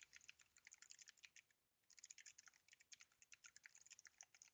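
Typing on a computer keyboard: a quick, faint run of key clicks that pauses briefly about a second and a half in, then goes on.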